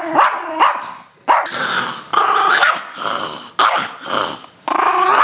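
Small Chihuahua growling aggressively, breaking into about six sharp snarling barks.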